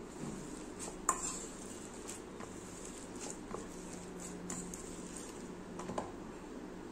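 A kitchen masher mashing leftover cooked rice in a bowl: a steady low rustle of the rice being pressed, with scattered light clinks of the masher against the bowl, the sharpest about a second in.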